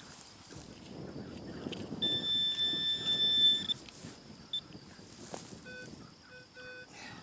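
Electronic beeping from metal-detecting gear being worked over a dug hole: a high steady tone for about a second and a half starting about two seconds in, then a few short, lower beeps near the end, signalling metal in the soil.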